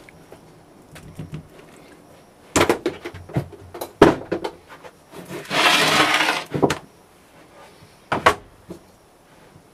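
Sieving and packing casting sand: a mesh sieve and steel flask knock and clatter against a metal tray, with a rustling hiss of sand lasting about a second and a half near the middle. There are sharp knocks around the fourth and eighth seconds.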